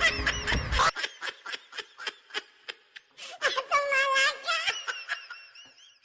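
Laughter in short, rapid bursts, trailing off into thin, high giggles near the end.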